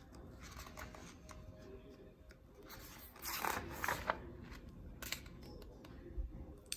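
Paper pages of a large book being turned by hand: a faint rustling swish of a page turn about three seconds in, with light paper handling and a few small clicks around it.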